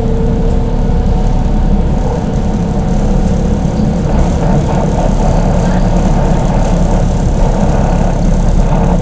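Steady low rumble inside a moving BKM 321 trolleybus, from its running gear and electric traction drive, heard from the passenger cabin.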